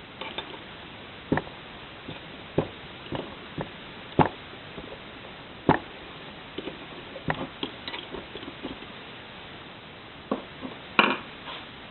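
Sharp clicks and knocks of tools and small parts being handled while a tractor magneto is taken apart, about ten at irregular intervals with a short cluster near the end.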